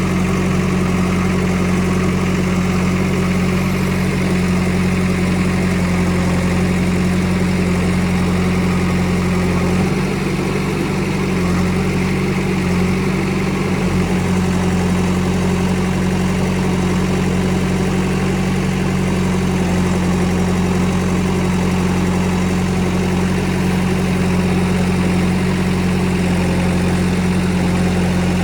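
JCB backhoe loader's diesel engine running steadily at constant speed. Its note wavers and dips for a few seconds about ten seconds in.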